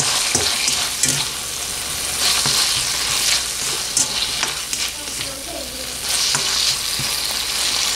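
Chicken, shrimp and julienned carrots sizzling in hot oil in a wok while being stirred with a slotted spoon, with the spoon scraping and knocking against the pan now and then.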